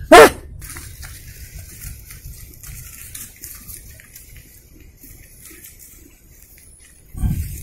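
A child's short, loud shout, then quiet outdoor background with faint scuffs and rustles. A dull low thump comes near the end.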